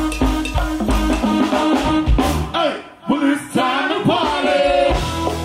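Live band music with a steady beat of drums and bass and a gliding melodic line on top. Near the middle the beat drops out for about a second, then comes back in.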